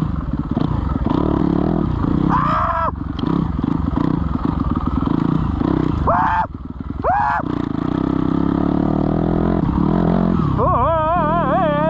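Dirt bike engine running under the rider, revving up and back down in short bursts several times, with a wavering rev near the end as it struggles for traction in deep snow.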